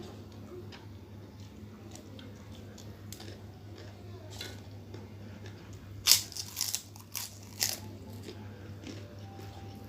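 Close-miked eating: chewing with small wet clicks, then a run of loud sharp crunches about six seconds in as crisp krupuk crackers are bitten.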